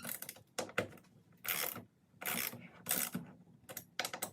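Hand torque wrench worked on the roof rail's mounting bolts: a run of short, irregular ratcheting strokes, about eight in all.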